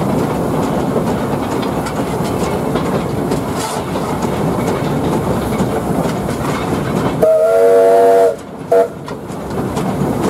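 Footplate of a Bundaberg Fowler 0-6-2T narrow-gauge steam locomotive on the move: steady rattle and rail noise. About seven seconds in, the locomotive's steam whistle gives one loud, steady-pitched blast of about a second, followed shortly by a brief toot.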